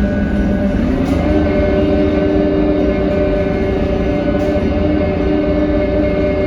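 Diesel drivetrain of a 2018 New Flyer XD40 transit bus, heard from inside the bus while it is under way, making a loud steady whine over an engine rumble. About a second in, the lower whine steps up in pitch and then holds.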